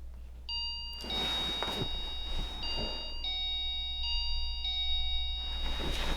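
An electronic ring tone: a melody of clean, steady beeping notes that steps from note to note every second or so and keeps repeating. A few soft knocks and rustles come in the first few seconds.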